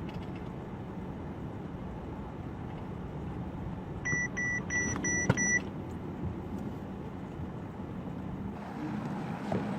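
Steady vehicle running noise with a low hum, and partway through a quick run of five short, high electronic beeps at about three a second, followed by a single click.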